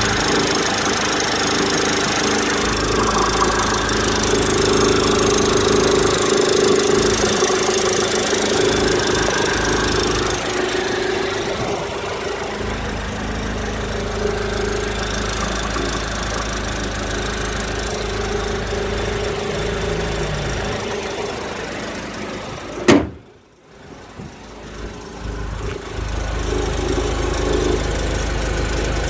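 Mercedes-Benz W169 A180 running at idle with a strange noise, the fault the owner is showing, heard over the steady engine sound. About 23 s in, a single sharp knock; the sound then drops away briefly before building back up.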